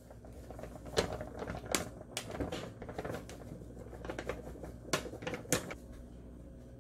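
A bag of pancake mix crinkling and crackling as it is tipped and shaken, the flour pouring out into a glass bowl. There are several sharp crackles of the packaging, and it goes quieter near the end.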